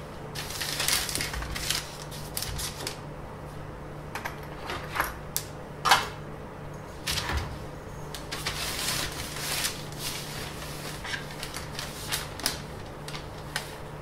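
Drawing tools handled on a paper-covered workbench: a compass, a flexible ruler, a steel ruler and a pencil making irregular taps, clicks and scrapes, the loudest a sharp knock about six seconds in.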